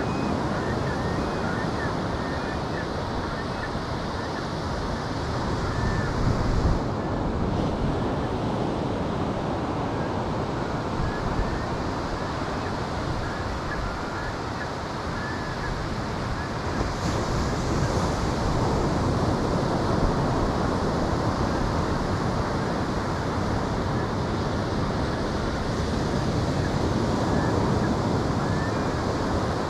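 Ocean surf washing steadily on the beach, with wind buffeting the microphone.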